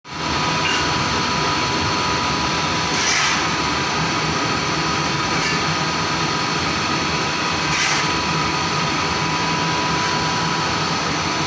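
Coal-fired boiler plant running: a steady mechanical drone with a constant high whine from the boiler's fans and machinery. Two brief scrapes, about three and eight seconds in, as a shovel digs into coal.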